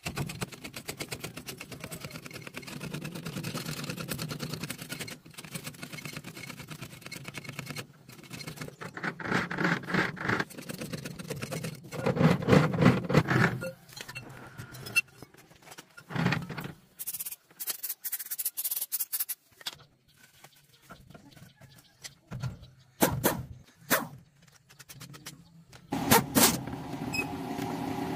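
A hydraulic bottle jack is pumped by hand with rattling clicks, then a pneumatic impact wrench works wheel nuts in several short bursts, with a hiss of air partway through.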